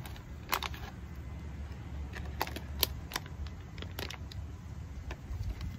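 Thin plastic water bottle crackling and clicking several times as it is handled and pressed down over a cutting in potting soil, over a low steady rumble.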